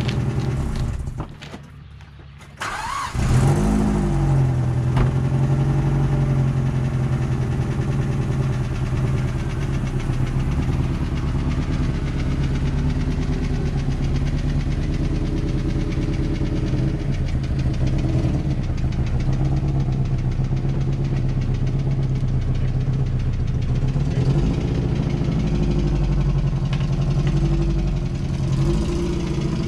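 Mazda NC Miata's 2.0-litre four-cylinder engine starting about three seconds in, then running steadily at low revs as the car creeps forward. It runs on three cylinders, because cylinder 3 has almost no compression.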